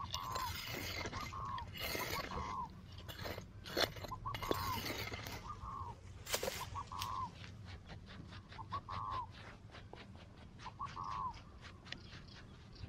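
A metal hand digging tool scraping and chopping dry, sandy soil out of a small hole for about the first six seconds, then stopping. Through it a bird calls repeatedly in short arched notes, often two in quick succession, every second or two.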